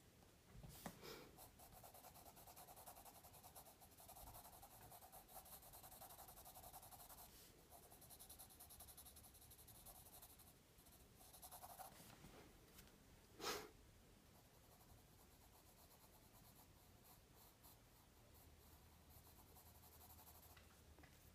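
Faint scratching of a pencil lead on paper, shading in repeated strokes. Two sharp taps, one about a second in and a louder one past the middle; the scratching thins out after the second.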